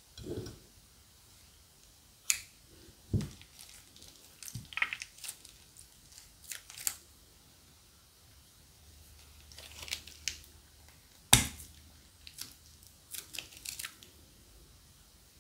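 Plastic bags being handled for slime-making: scattered short crinkles and sharp crackling clicks with quiet gaps between them, and a few soft thumps.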